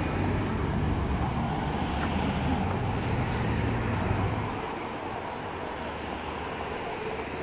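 City street traffic: a motor vehicle's engine runs close by with a low hum, then falls away about four and a half seconds in, leaving the steady wash of road traffic.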